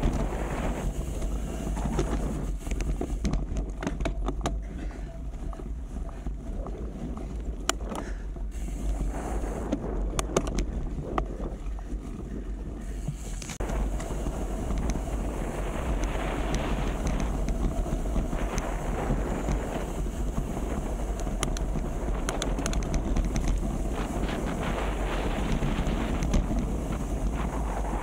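Wind buffeting the microphone: a steady low rumble and rushing noise with scattered small clicks and rattles. It eases for several seconds and comes back suddenly about halfway through.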